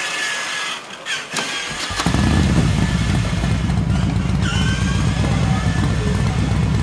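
A few short clicks, then about two seconds in a battery-powered ride-on toy car is switched on and its speaker plays a recorded engine-start sound that settles into a steady low engine rumble.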